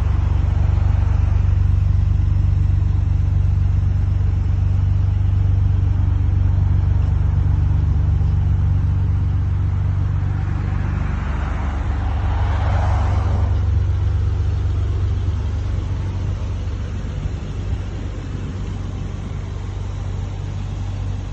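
Nissan Skyline R32 GT-R's RB26DETT twin-turbo straight-six idling steadily through an HKS cutback exhaust, a low even hum. About halfway through, the exhaust rush grows louder and hissier for a few seconds, then settles back.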